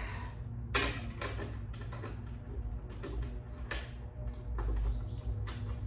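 Irregular light metallic clicks and taps as docking hardware is worked onto a motorcycle mounting bolt, over a low steady hum.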